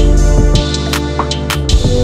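Background music: sustained chords over a deep bass line, with a few sharp percussion hits.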